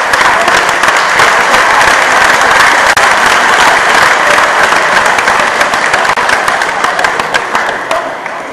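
Crowd applauding: a dense, steady clatter of many hands clapping that thins out near the end.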